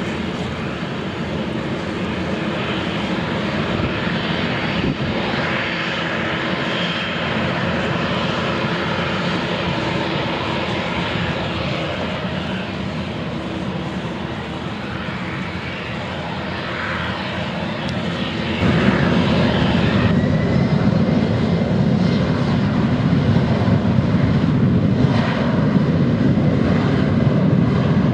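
Twin GE CF34-10E turbofan engines of an Embraer 190 jet running as it taxis and turns onto the runway. About two-thirds of the way through the sound suddenly gets louder and a rising whine follows, as the engines spool up toward take-off power.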